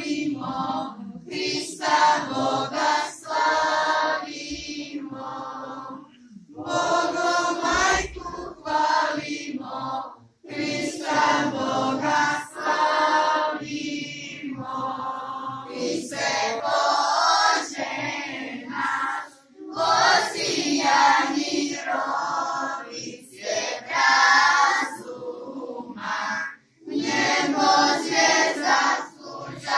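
Children's choir with girls' and women's voices singing together, the song sung in long phrases with short pauses between them.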